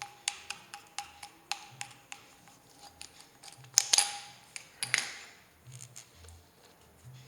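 Hard plastic and metal parts of a drill kit being handled: a string of sharp clicks and clacks, loudest as a close pair about four seconds in. No drill motor is running.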